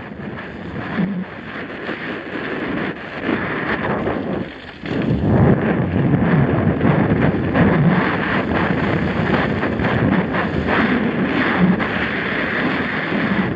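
Wind rushing over a helmet-mounted action camera's microphone as a Santa Cruz Nomad mountain bike descends a dirt trail, mixed with tyre noise and the bike's rattling as many small clicks and knocks. The rush builds over the first few seconds, dips briefly about a third of the way in, then holds loud.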